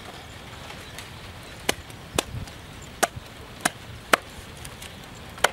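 Meat cleaver chopping a raw whole chicken on a wooden chopping block: six sharp chops at irregular intervals, starting a little under two seconds in.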